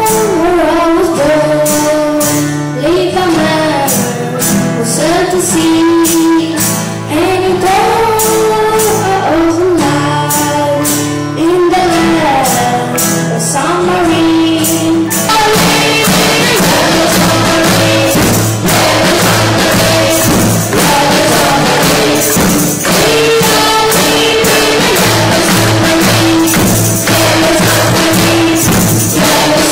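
Children's music ensemble performing a song: young voices singing a melody over acoustic guitars, keyboards and percussion keeping a steady beat. About halfway through the accompaniment gets fuller and busier and the voices less prominent.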